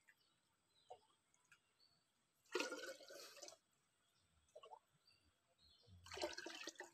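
Spring water poured from a wooden-handled ladle into a jar: two short splashing pours about three seconds apart, with small drips between.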